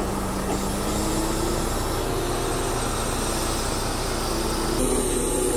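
Truck engine running steadily as it powers a hydraulic loader crane handling logs, a continuous drone with a held hum, shifting slightly near the end.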